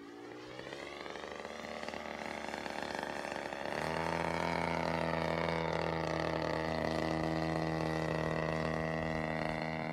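Radio-controlled model airplane's motor and propeller as the plane flies by. The pitch glides at first, then the sound gets louder, steps up about four seconds in, and holds a steady pitch.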